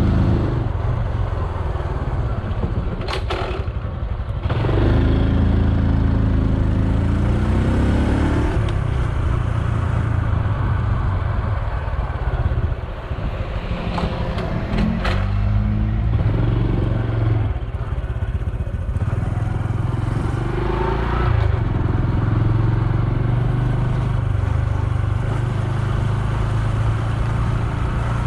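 Honda Super Cub C125's air-cooled single-cylinder four-stroke engine running on the move, its pitch rising and falling several times as the rider accelerates and shifts. A few sharp clicks come about three seconds in and again around fourteen seconds.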